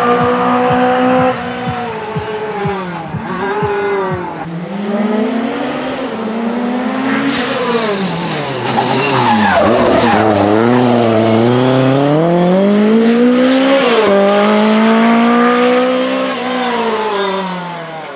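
Lancia Rally 037's supercharged four-cylinder engine driven hard, its revs repeatedly rising and falling with throttle and gear changes, dropping lowest about halfway through before climbing again.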